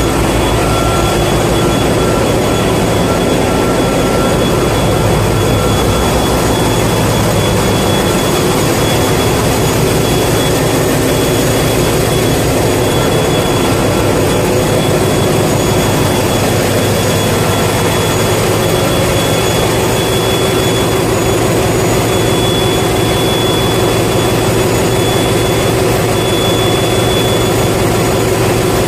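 Ship's engine-room machinery running, a loud, unbroken drone with a low rumble and a few steady whining tones over it.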